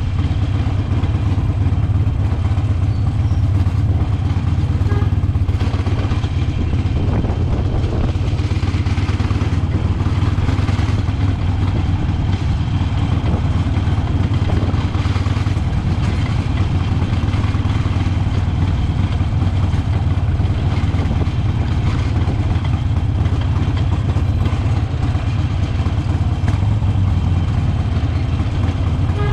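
Harley-Davidson motorcycle's V-twin engine running steadily, with a deep, even exhaust note.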